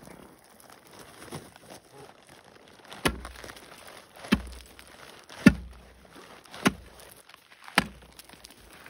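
Heavy spud bar (ice chisel) jabbed down onto lake ice five times, about once every second and a bit from about three seconds in, each strike a sharp crack with a low thud, testing the ice for soft spots.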